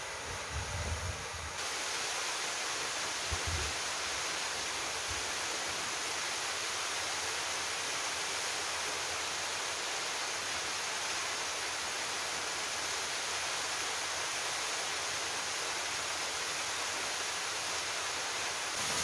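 Waterfall's steady rushing hiss, heard from across the valley. A few low bumps in the first second or two, and the rush grows louder near the end.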